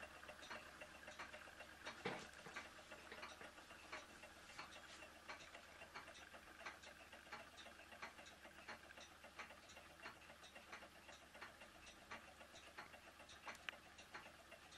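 Faint, regular mechanical ticking, about three clicks a second, from small model Stirling engines running, with one louder knock about two seconds in.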